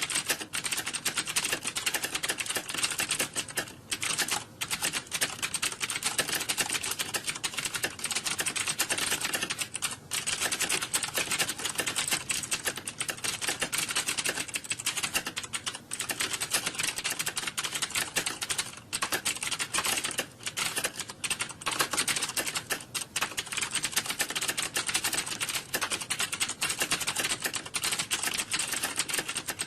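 Fast, continuous typing on a computer keyboard, a dense stream of key clicks with a few brief pauses, at the steady pace of a timed typing test.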